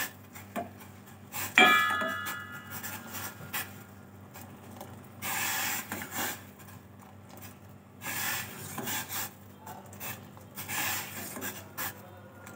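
Kitchen utensils being handled: one sharp clink about a second and a half in that rings on briefly, then three short scraping, rubbing strokes.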